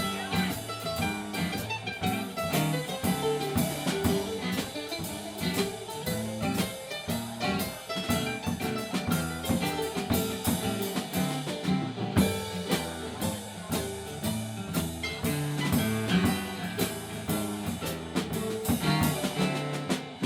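Live band playing an instrumental passage: drum kit keeping a steady beat under guitar and other pitched instrument lines.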